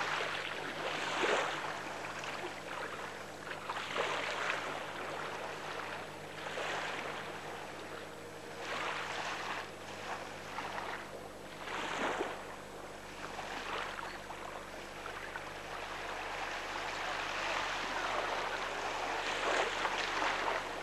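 Small waves washing onto a sandy beach, a hissing surge that swells and fades every two to three seconds.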